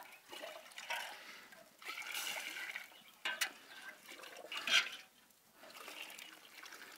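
Warm water being poured from a pot into a bucket, in several short pours and splashes.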